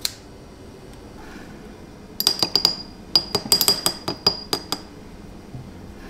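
Two quick runs of light clinks from a small hard object, about fifteen in all, each with a high ringing note. They start about two seconds in and stop near the five-second mark.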